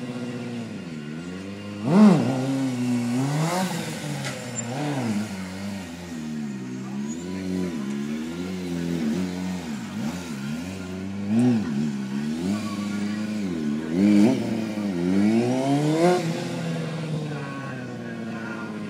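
Stunt motorcycle's engine revving up and down over and over while it is ridden through stunts, its pitch rising and falling many times. The loudest burst comes about two seconds in, and there are more peaks later on.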